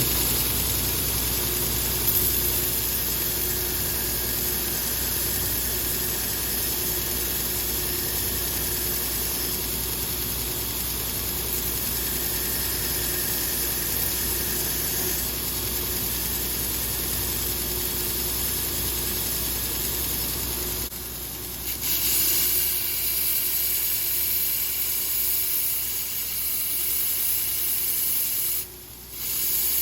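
Electric grinder running steadily as stainless steel chopsticks are ground to even out the end knobs and remove a cracked tip. About 21 seconds in, the low hum drops and a brighter hiss takes over, with a brief dip near the end.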